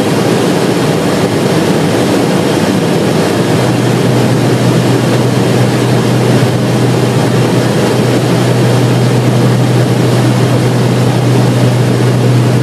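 Steady roar of airflow and engines inside a KC-10 tanker's boom operator station in flight, while it refuels a C-17. A steady low hum joins about three and a half seconds in.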